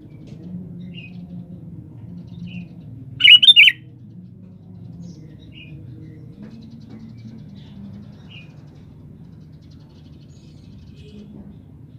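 Sooty-headed bulbul (kutilang) calling: scattered short chirps, with one loud burst of several quick notes about three seconds in, over a low steady hum.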